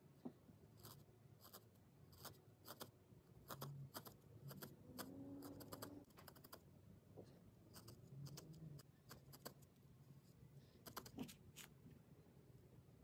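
Needle felting: a barbed felting needle stabbing repeatedly through wool into a foam pad, making soft, irregular clicking pokes, a few close together at times.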